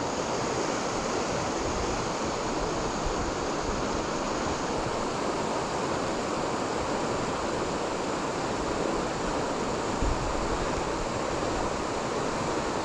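River water rushing steadily, an even hiss with no let-up, with a brief low bump on the microphone about ten seconds in.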